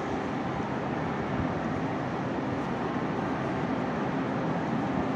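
Steady, even noise of a Chinese conventional passenger train with green sleeper carriages, heard close alongside the carriages.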